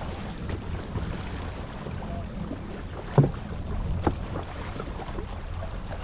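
Jet ski engine running at idle with water lapping at the hull, while a grouper is gaffed alongside. Two sharp knocks, the louder about three seconds in and another about a second later.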